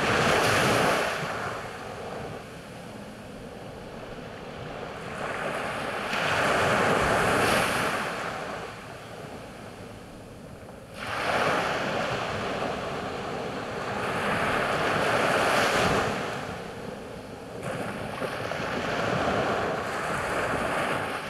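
Small sea waves breaking and washing up a sandy beach, the surf swelling and fading four times, about every five seconds.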